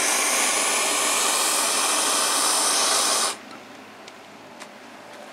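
Hand-held gas torch on a yellow fuel cylinder, hissing steadily as its flame plays on magnesium shavings in a cast iron skillet, then shut off suddenly a little over three seconds in. After that only a few faint ticks are left from the burning shavings.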